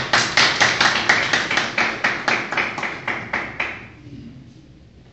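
Hands clapping in a steady rhythm, about four claps a second, as a welcoming round of applause. The claps start abruptly and die away after about four seconds.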